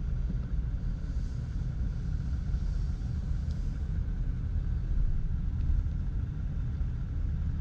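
Steady low rumble of a car's engine and tyres, heard from inside the cabin while driving slowly along a street.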